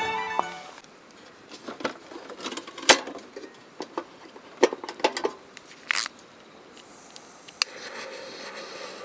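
Irregular sharp clicks and light knocks, a few seconds apart, over quiet background hiss, after a stretch of music fades out in the first second.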